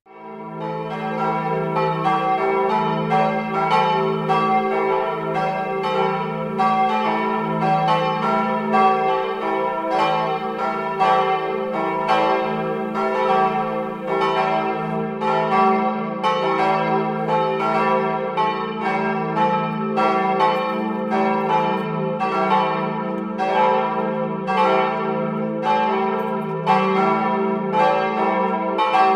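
Several church bells pealing together, their strokes overlapping in a continuous ringing that starts abruptly.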